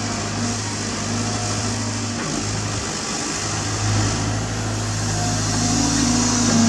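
Caterpillar 320GC excavator's diesel engine running steadily under digging load: a low, even hum that grows a little louder about four seconds in and again near the end.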